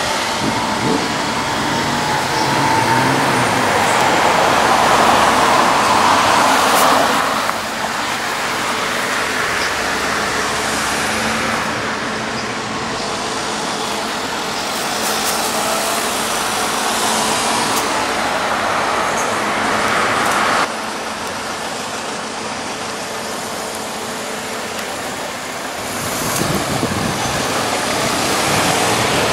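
Road traffic at a town intersection: cars and vans passing, their tyre and engine noise swelling and fading several times, with two sudden drops in level.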